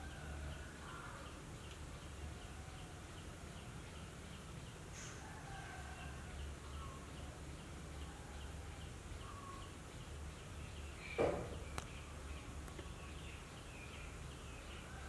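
Faint background ambience: a steady low hum, a faint, evenly repeating chirp and a few scattered distant bird-like calls. One short, louder call about eleven seconds in.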